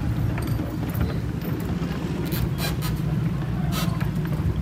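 Steady low rumble of a large motor yacht's engines running as it manoeuvres close alongside a floating pontoon, with a few short knocks about halfway through.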